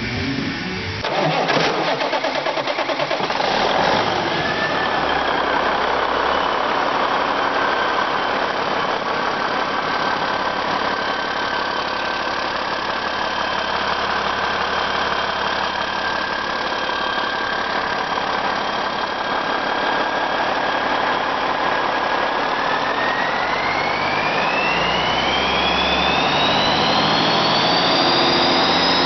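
1995 Cummins N14 inline-six turbo diesel starting about a second in, then running steadily at idle. In the last several seconds it is revved up, and the turbocharger whine rises steeply in pitch.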